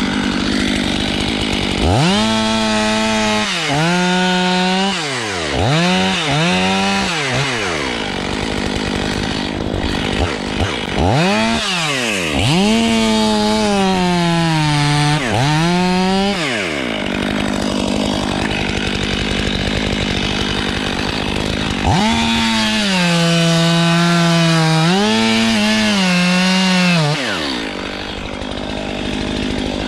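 Two-stroke chainsaw revved to full throttle three times, each time for several seconds. The pitch sags and recovers as the chain bogs under load in the wood, and the saw drops back to a lower, rougher run between the cuts.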